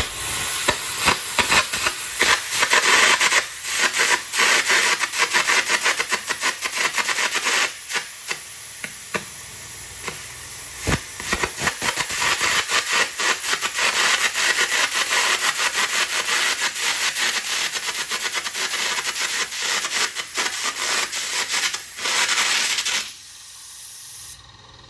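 Air carbon arc gouging: the carbon rod's arc and its compressed-air jet blasting molten metal out of a weld cap, a loud steady hiss full of rapid crackles and pops. It cuts off suddenly near the end.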